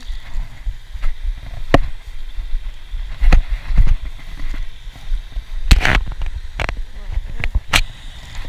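Zip-lock plastic bag of corn bait being handled, crinkling and rustling in several short sharp bursts, the longest a little past halfway. A steady low rumble of wind or handling noise on the microphone lies under it.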